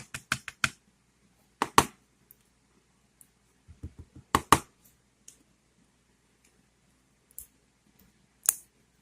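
Short sharp clicks and taps of a pin-tumbler lock's small pins being handled and taken out as the lock is disassembled. There is a quick run of about five clicks at the start, then pairs about two and four and a half seconds in, and a single click near the end.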